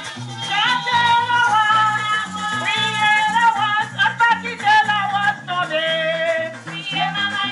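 A group of women singing a La Rose festival song at a microphone, their high voices gliding over a live band with a steady stepping bass line.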